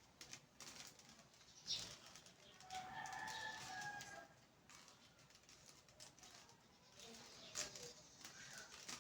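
Faint, scattered plastic clicks of a Rubik's cube being turned, with a brief faint whistle-like sound about three seconds in.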